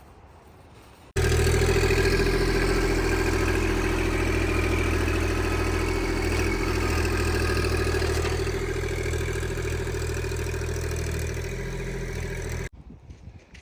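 Stihl 066 two-stroke chainsaw running steadily at a loud, even pitch, cutting in suddenly about a second in and cutting off sharply about a second before the end.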